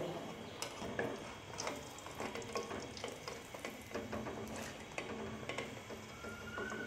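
Dal fritters in hot ghee in an aluminium karahi, a faint steady sizzle with scattered crackles, while a wooden spatula and a wire skimmer scrape and tap against the pan as the fritters are lifted out to drain.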